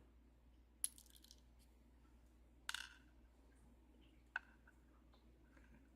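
Near silence broken by three faint, short metallic clicks, about a second in, near the middle and past four seconds: tiny lock pins and tools being handled while a lock cylinder is taken apart.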